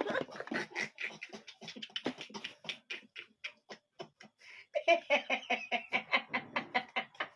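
A person's laugh turned into rapid, breathy gasps, about four or five short pulses a second, growing louder about two thirds of the way through.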